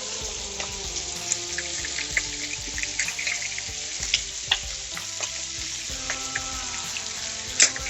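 New York strip steaks sizzling in a pan of hot butter and garlic, with a steady hiss and frequent small crackling pops of spattering fat.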